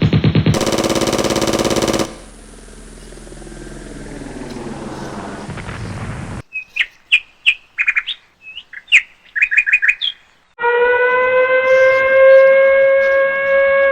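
A string of edited-in sound effects: about two seconds of rapid buzzing pulses, then a falling sweep that fades out, then a run of short high chirps, and from about ten seconds in a held horn-like tone with several overtones.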